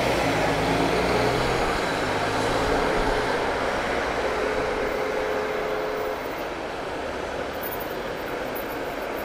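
City traffic noise: a steady din of many vehicle engines, easing slightly in the second half, with a faint held tone for a couple of seconds around the middle.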